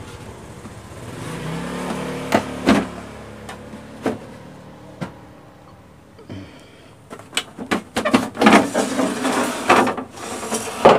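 The plastic back cover of a CRT television being worked loose and pulled off: scattered sharp clicks and knocks, then a dense run of plastic rattling, clacking and scraping in the last few seconds. A humming tone rises and fades over the first few seconds.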